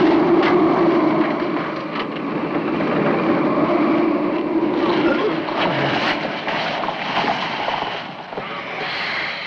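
Loud, steady rush of air escaping through a bomb-blown hole in a jetliner's fuselage during rapid decompression, with several knocks and clatters of loose debris.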